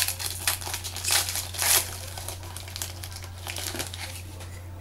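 Crinkling of a foil trading-card pack wrapper and the rustle of cards being handled. There is a quick flurry of crinkles in the first two seconds, then they come more sparsely.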